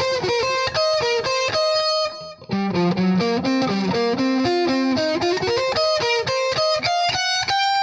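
Electric guitar playing a fast sweep-picked C minor 7 flat 5 arpeggio lick, one pick motion across three strings per sweep. It runs in two quick flurries of notes with a short break about two seconds in, and ends on a held note.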